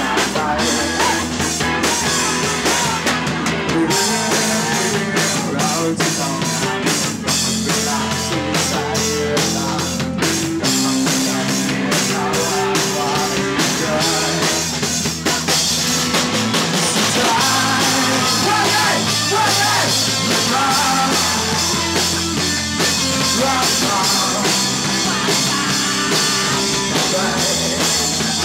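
Live rock band playing loud: electric guitar and a drum kit with a steady beat, and a voice singing along.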